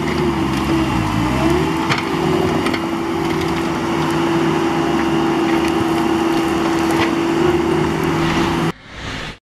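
Diesel engines of a Bobcat T190 compact track loader and a Bobcat compact excavator running steadily together, the engine pitch briefly sagging and recovering about a second in, with scattered sharp knocks and cracks over the engine noise. The sound cuts off abruptly near the end.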